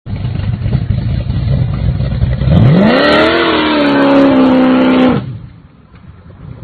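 First-generation Chevrolet Camaro's engine rumbling, then revving hard as the car launches: the pitch climbs steeply about two and a half seconds in and holds high for about two seconds, then cuts off suddenly, leaving a much fainter rumble.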